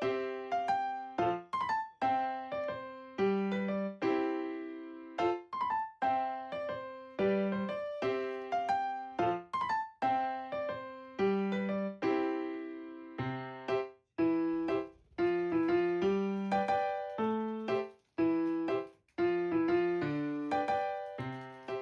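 Background music: a light keyboard tune, each note struck and ringing away.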